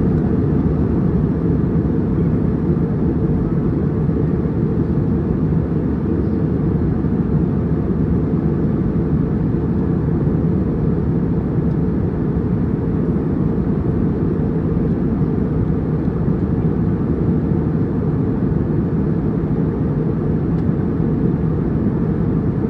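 Passenger airliner cabin noise in flight: a steady, low rumble of engine and airflow noise that stays even and unbroken.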